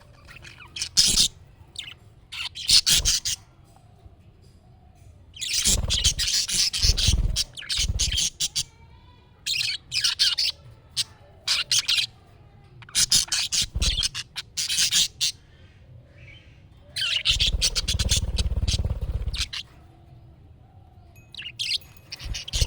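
Budgerigars chirping and chattering in loud, fast bursts of high twittering that last up to about two seconds, with quieter pauses between them.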